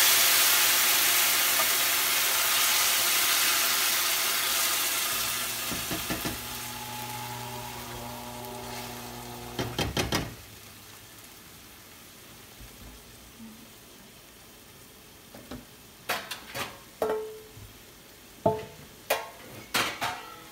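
Diced canned tomatoes sizzling in hot olive oil in a stainless steel sauté pan, loud at first and dying down over several seconds as they are stirred with a silicone spatula. Scrapes and taps of the spatula on the pan come near the middle, then a few light clicks and knocks near the end.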